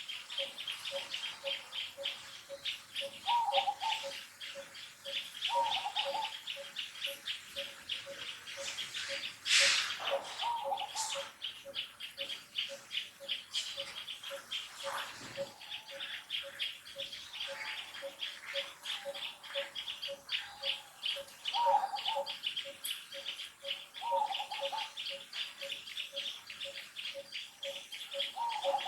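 Bird and insect calls: a continuous rapid, high pulsing chatter, a low note repeated steadily about twice a second, and short falling calls every few seconds. A brief rustle about ten seconds in.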